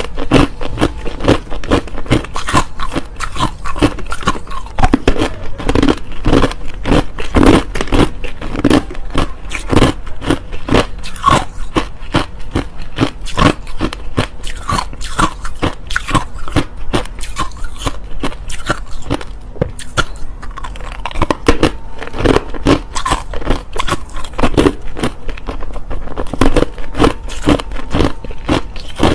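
Person biting and chewing hard, clear crushed ice close to the microphone: a fast, continuous run of loud, sharp crunches.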